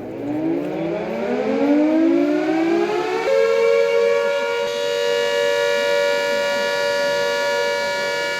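Civil-defence air-raid siren sounding as a mock-drill warning. It winds up, rising in pitch for about three seconds, then holds one steady tone.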